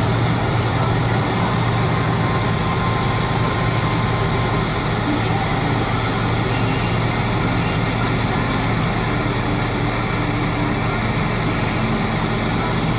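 Vehicle engine running steadily under load, heard from inside the cab: a constant low hum over broad road and snow noise.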